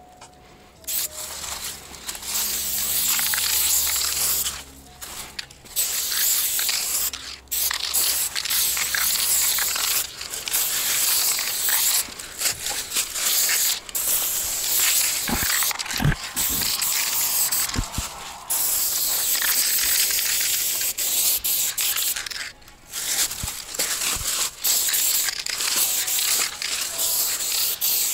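Aerosol spray-paint can spraying onto a rough wall: long hissing strokes broken by short pauses. A few dull knocks come near the middle.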